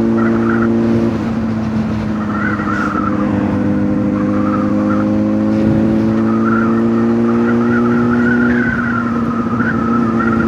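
Honda motorcycle engine running at a steady cruise, its note shifting about a second in and again near the end.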